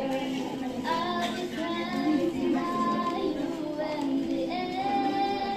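A duet sung with musical accompaniment: a melody of long held notes, some gliding between pitches.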